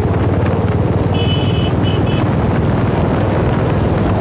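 Royal Enfield Bullet motorcycle's single-cylinder engine running on the move, with wind buffeting the microphone. About a second in, a horn beeps: one longer beep, then two short ones.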